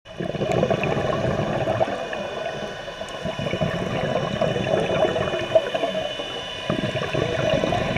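Scuba diving heard underwater: the gurgle and rumble of exhaled bubbles from a diver's regulator, swelling and easing with the breaths, with a few faint steady high tones over it.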